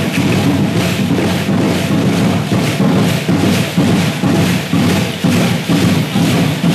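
Aztec dance drumming: a drum beaten in a steady, driving rhythm, with a continuous rattling over the beat.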